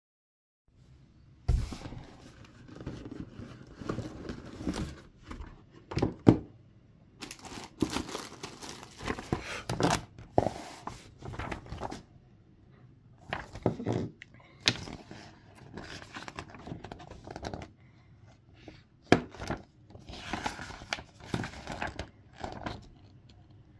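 A cardboard model-kit box being opened and unpacked by hand: irregular rustling, crinkling and tearing of paper and packaging, broken by sharp knocks and clicks, the loudest about six seconds in. Near the end, the pages of a paper instruction manual are handled and turned.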